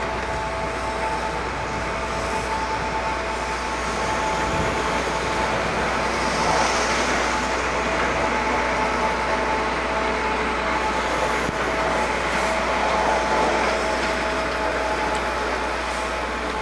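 Chairlift top-terminal machinery running steadily: a constant mechanical whine with two held tones over a rushing hum as the bull wheel turns and chairs pass.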